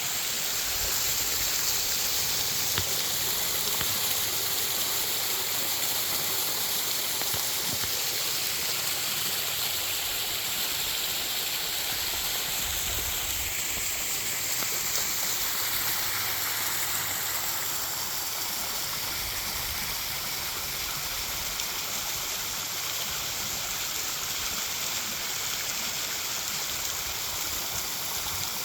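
Creek waterfall: a steady rush of falling water, a little softer from about eighteen seconds in.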